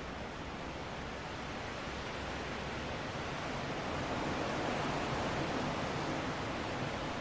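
Steady rushing wind, swelling to a stronger gust about halfway through and easing off again near the end.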